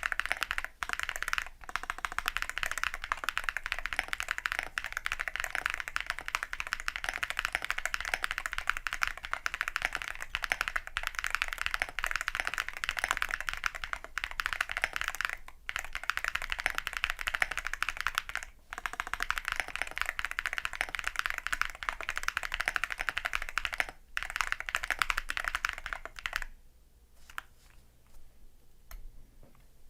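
Continuous fast typing on a qwertKeys QK75 custom mechanical keyboard with a POM plate, gasket mount, lubed Geon Tecse Clear switches and Geon Desko keycaps: dense key clicks with a few brief pauses. The typing stops for about three seconds near the end, then starts again.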